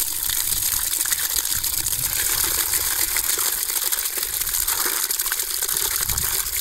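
Water poured in a steady stream into a plastic bucket already partly full of water, gushing and splashing into it.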